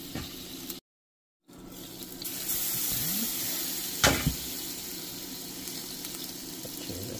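Shallow water simmering and sizzling around a piece of sausage in a stainless wok, a steady hiss. There is one sharp click about four seconds in, and the sound drops out briefly near the start.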